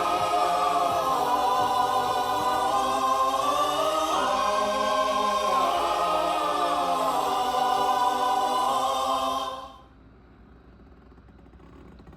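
Background music: a choir singing long held chords. It fades out quickly just under ten seconds in, leaving only faint background noise.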